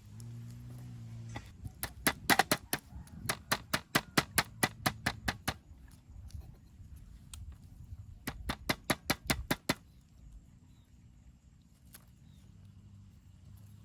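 Two runs of quick, sharp knocks, about four or five a second, the first lasting a few seconds and a shorter second run about two-thirds of the way in.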